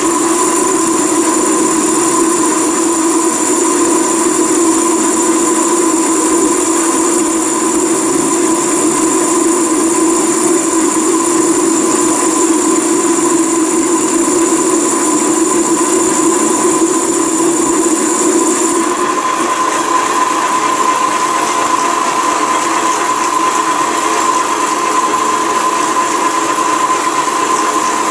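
Holbrook C8 lathe running under power with a steady gear whine, turning a taper. About two-thirds of the way through, its pitch pattern changes as one steady tone drops out.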